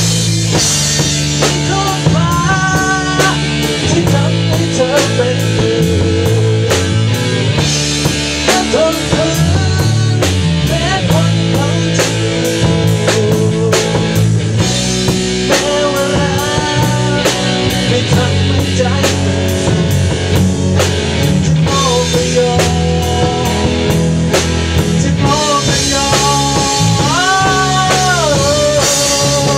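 Rock band playing live: a drum kit with cymbals keeps a steady beat under electric guitar and sustained low notes, with a melody line that bends up and down in pitch over the top.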